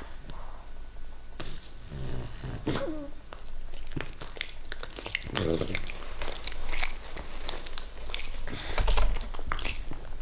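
English bulldog puppy snoring in its sleep with a runny nose: a few rattling snores, then many clicks and snuffles through the blocked nose, loudest near the end.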